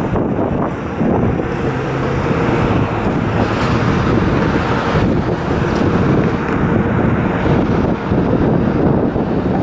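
Street traffic and a 1995 KME fire engine running as it pulls away, under heavy wind buffeting on the microphone.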